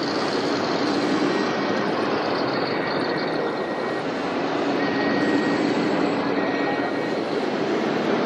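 Steady engine-like rumble with a hiss, from radio-controlled model trucks and construction machines running.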